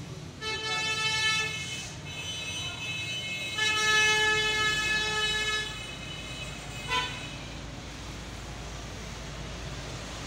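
Vehicle horns from street traffic: two long steady blasts and a short toot about seven seconds in, over a low rumble of traffic.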